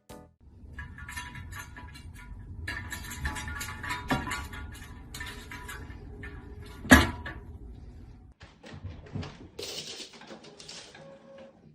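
Household clatter: a scatter of small clicks and knocks, with one sharp, louder knock about seven seconds in and a short hiss near the end.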